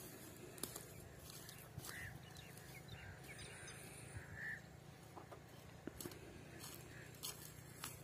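Faint quiet outdoor background with a few short, distant bird calls and a handful of light clicks and rustles.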